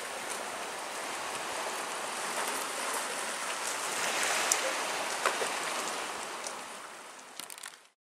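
Small waves washing over a pebble shore, heard from a camera at the waterline that dips in and out of the water: a steady hiss of fizzing, sloshing water with scattered small clicks, fading out near the end.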